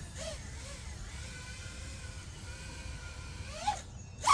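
FPV quadcopter's brushless motors whining faintly and steadily while it sits armed on the ground, then spooling up quickly near the end into a loud rising whine as it takes off and punches upward.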